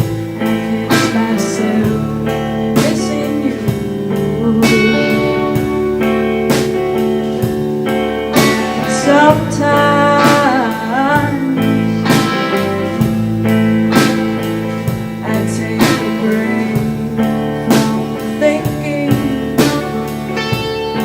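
Live folk-rock band playing an instrumental passage: electric guitars, bass and a drum kit keeping a steady beat, with bending lead guitar notes in the middle.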